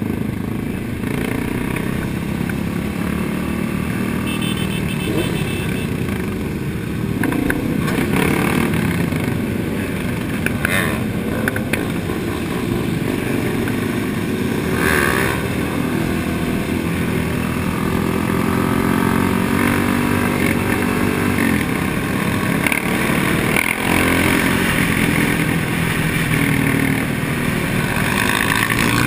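Motorcycle engines of a large group ride running at cruising speed, with the engine note drifting gently up and down, heard from a helmet-mounted camera with a steady rush of wind.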